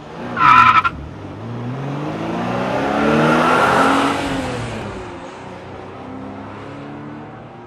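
Car engine revving up, its pitch rising over about three seconds and then falling away as it fades. A brief, loud, high squeal about half a second in is the loudest sound.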